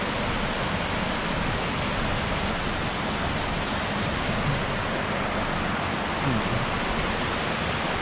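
Steady rushing of a mountain stream, an even noise so constant that it can pass for rain falling all night.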